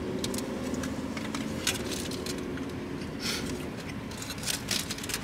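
Aluminium foil around a burrito crinkling and crackling as it is handled and unwrapped while eating, in scattered sharp crackles with a short louder rustle about three seconds in, over a steady low hum.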